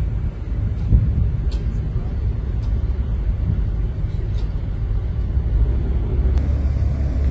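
Steady low rumble of a passenger ferry underway, heard from its deck, with a brief louder bump about a second in and a few faint light clicks.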